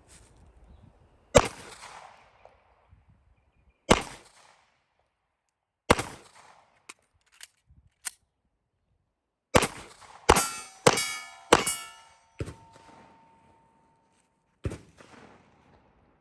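Pistol shots in a timed drill: three single shots about two seconds apart, a pause with small clicks of a reload, then a quicker string of shots with metallic ringing after them, and one last shot near the end.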